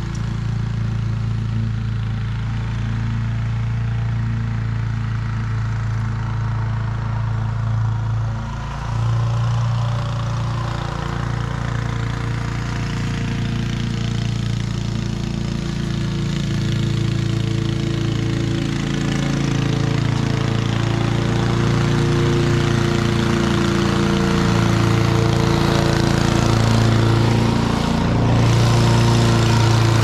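Honda HRC216 walk-behind lawn mower's single-cylinder engine running steadily while cutting grass, growing louder over the second half as the mower comes close.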